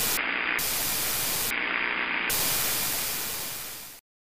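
Analogue television static: a steady hiss of white noise whose tone changes twice, turning duller for a moment, before it cuts off suddenly about four seconds in.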